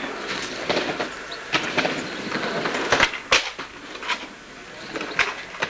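Skateboards rolling over paving slabs, with several sharp clacks of boards striking the ground. The two loudest clacks come close together about three seconds in.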